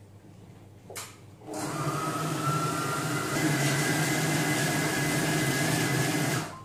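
Silvercrest Monsieur Cuisine Connect food processor running its blade at speed 5, mixing the minced-meat and yogurt meatloaf mixture in its bowl. A click about a second in, then the motor starts and runs steadily with a hum and a whine, and cuts off suddenly near the end.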